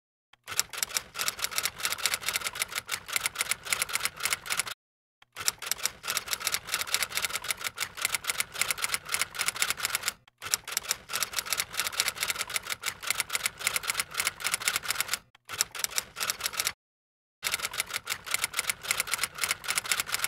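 Rapid typing: a dense, fast run of key clicks, broken by four short silent pauses.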